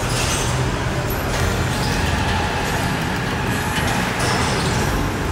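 Jeep Gladiator Rubicon driving slowly, its engine and drivetrain a steady low rumble heard from inside the cabin.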